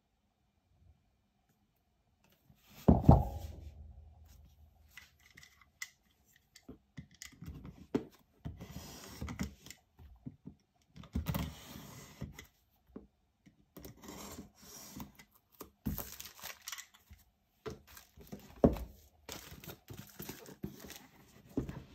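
Plastic shrink-wrap on a tablet box being cut with a blade and torn off, crinkling and rustling in irregular bursts. A single loud thump about three seconds in.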